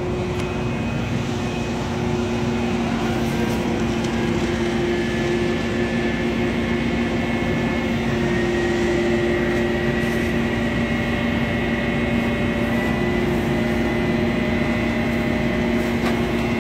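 A fire engine's motor and pump running steadily while supplying a hose line: a constant hum with a few held tones over a rushing noise.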